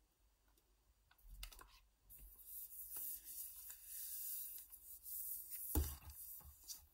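Hands handling a new Apple iPad Pro in its protective plastic film as it is taken from its box and turned over: a few light taps, then a few seconds of high hissing rustle of fingers sliding over the film, with a louder knock near the end.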